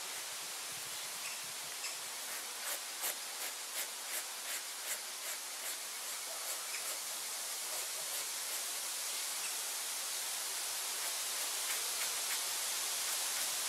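Knife blade scraping the wet flesh side of a hide, a run of short scraping strokes about two to three a second, thinning out in the second half, over a steady hiss. This is fleshing: scraping off membrane remnants before vegetable tanning.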